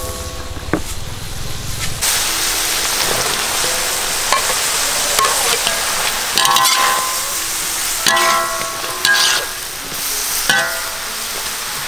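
Vegetables tipped into a hot wok set off a sudden loud sizzle about two seconds in, which then runs on steadily as they are stir-fried. A metal spatula scrapes and knocks against the wok several times, each knock leaving a short metallic ring.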